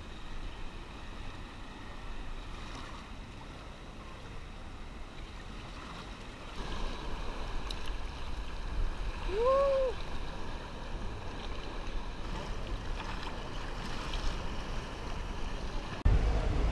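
Sea surf washing over the lava-rock pools, a steady rushing with a low rumble. About ten seconds in, a short tone rises and falls once, and near the end the noise jumps suddenly louder.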